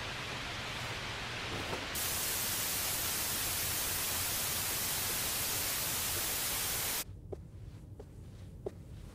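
CRT television static hiss that jumps louder about two seconds in, holds steady, then cuts off abruptly about seven seconds in. A few faint short ticks follow.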